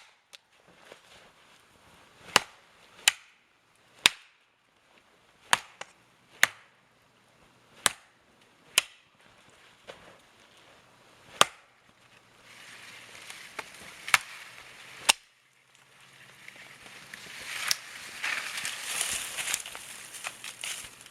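Spruce boughs being chopped: about a dozen sharp, separate chops, roughly one a second, then from about halfway a rustle of needled boughs being handled, loudest near the end.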